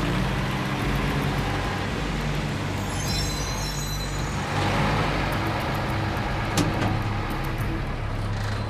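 Military cargo truck's engine running steadily as the truck pulls up, with a brief high brake squeal about three seconds in and a sharp click a few seconds later.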